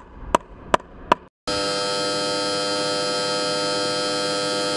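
Four sharp ticks, about two and a half a second, then a short gap, then a loud, steady electronic buzzing drone made of many fixed tones that starts about a second and a half in.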